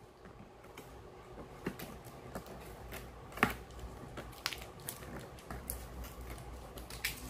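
Hands handling a cardboard drill box and fiddling with the tie on its carry handle: light rustling with a few scattered clicks, the sharpest about three and a half seconds in.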